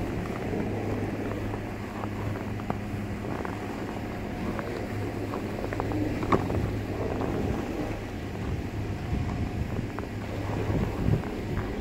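Steady low mechanical hum with wind on the microphone, broken by scattered light clicks and one sharper click about six seconds in.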